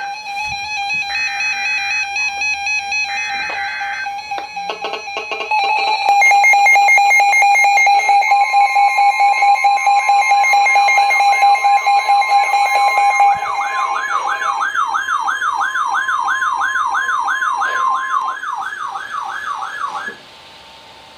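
Tornado warning emergency alert signals: three short bursts of data screech about a second apart (the digital alert header), then several electronic alarm tones overlapping. Steady and rapidly pulsing beeps are joined by a long steady attention tone of about ten seconds, and a warbling tone that rises and falls about twice a second starts partway through. The tones cut off near the end.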